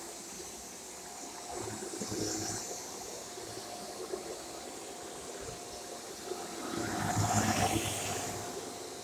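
Shark corded bagless upright vacuum cleaner running: a steady motor whine with rushing air, swelling louder for a couple of seconds about seven seconds in.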